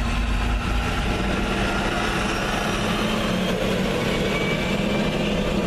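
Car engine idling with a steady low hum, heard from inside the cabin while stopped in heavy traffic.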